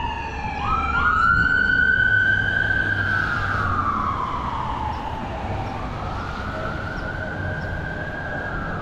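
Siren wailing, its pitch sweeping slowly down and back up in long cycles of several seconds, over a low steady hum.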